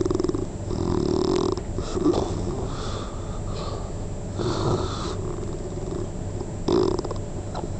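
A sleeping person snoring, a few rough, fluttering snores in separate breaths.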